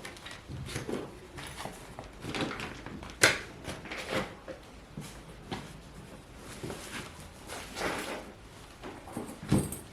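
Household objects being handled and put away: scattered knocks, clicks and rustles, with a sharp knock about three seconds in and another near the end.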